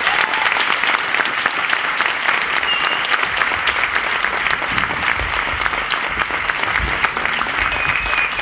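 Audience applause: many hands clapping at a steady, even level.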